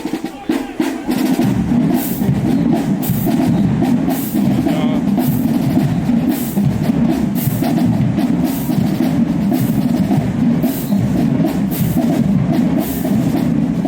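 HBCU marching band playing loud, with massed brass carried over a drumline's steady beat of drum and cymbal hits.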